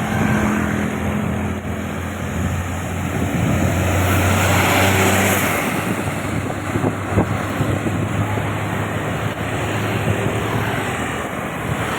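Tour bus passing by on the road: its engine hum and tyre noise swell to a peak about four to five seconds in, then ease into steady traffic noise.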